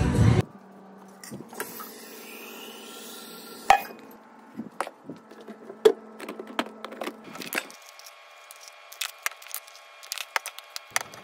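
Scattered clicks, knocks and light clinks of plastic pre-workout tubs, a scoop and a tumbler being handled, with two louder knocks about four and six seconds in, over a faint steady hum.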